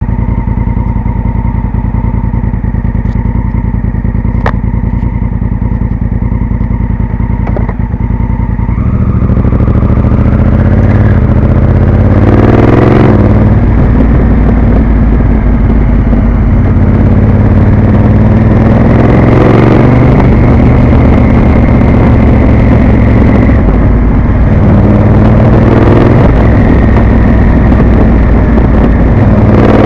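Honda CRF1000L Africa Twin's parallel-twin engine through a Beowulf aftermarket exhaust, running steadily at low revs for about nine seconds. It then opens up loudly as the bike accelerates, the revs climbing and dropping back several times as it shifts up through the gears.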